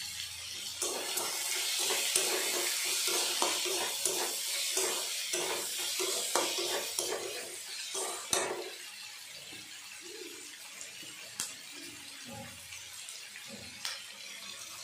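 Onion and capsicum sizzling in oil in a kadai on a gas burner while a metal spatula scrapes and knocks against the pan, stirring. The sizzle is louder for the first eight seconds or so, then dies down, leaving occasional knocks of the spatula.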